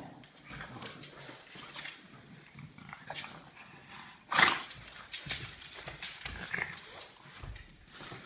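Two French bulldogs licking and mouthing at each other's faces: a run of short, irregular snuffling and licking noises, with one much louder sudden burst about four seconds in.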